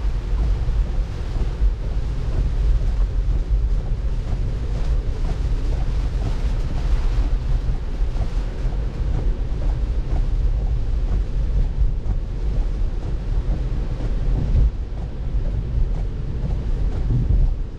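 Heavy rain on a moving car, with steady road and water spray noise from the tyres on the wet road, heard from inside the cabin.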